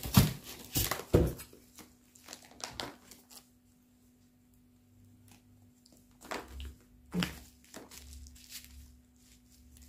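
Clear plastic bags crinkling and rustling as packed items are picked up and handled, with a few sharp scrapes and knocks in the first second or so as a styrofoam box lid is lifted off and set aside. A faint steady hum runs underneath.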